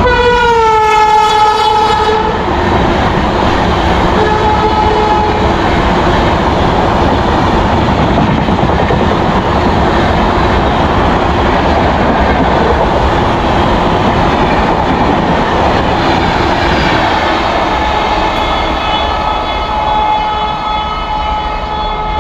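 Electric locomotive's horn sounding as it passes, its pitch falling, then the steady rush and clickety-clack of ICF passenger coaches running through at speed. A short horn note comes about four seconds in, and near the end a long steady train horn sounds.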